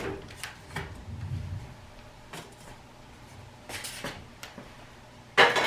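A few short rustles and knocks of items being handled while unpacking the dishwasher's paperwork and accessories, the loudest a brief rustle near the end.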